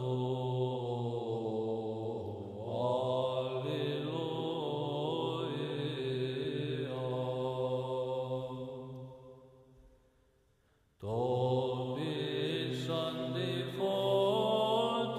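Byzantine chant: a voice sings a slow, wavering melody over a steady held low drone. It fades out about nine seconds in, and after a second of silence another chant starts abruptly.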